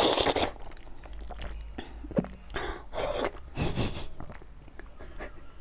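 Close-miked wet eating sounds: a mouth biting and sucking at a soft yellow jelly ball, then fingers squishing and pulling it apart, in short noisy bursts with small clicks.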